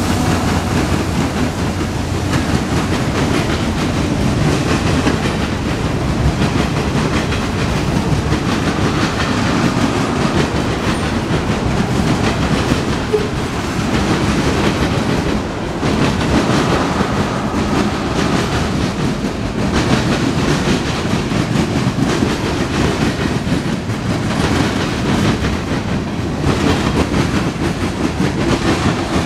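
Loud, steady rolling of freight cars (boxcars and tank cars) passing close by on a mixed freight train, with the wheels clacking continually over the rail joints.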